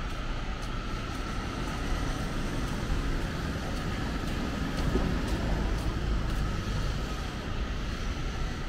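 City street ambience: steady traffic noise with a low rumble.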